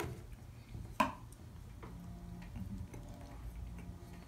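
A few sharp clicks, the loudest about a second in with a brief ring, as a small piece of tableware is set down on the wooden table during eating, over a low steady hum.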